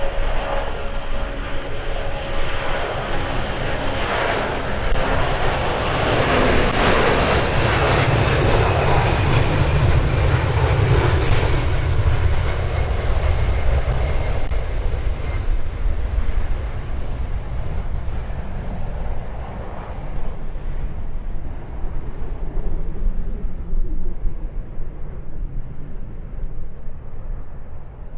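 An airliner passing overhead: its engine noise builds to a peak about a third of the way through, with a whine that falls in pitch as it goes by, then fades away. Wind buffets the microphone with a low rumble throughout.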